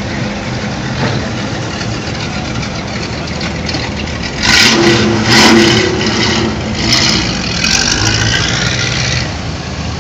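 Car engines passing at low speed: the V8 of a Fox-body Ford Mustang GT 5.0 rumbles steadily. About four and a half seconds in, a louder engine takes over and rises in pitch as a yellow Chevrolet Camaro pulls past, then fades back down near the end.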